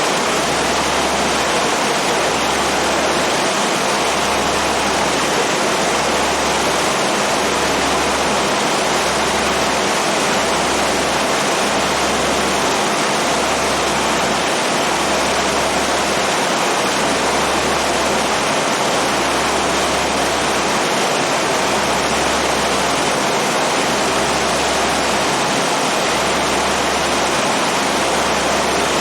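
Steady loud rushing noise aboard a passenger boat under way, with a low rumble underneath that breaks off and returns about once a second.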